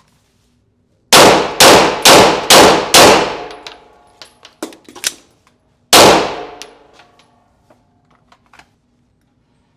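Six shots from a Glock pistol: five fired in quick succession about half a second apart, then a pause and a sixth shot about three seconds later, each with a ringing echo. Light clicks sound between the shots.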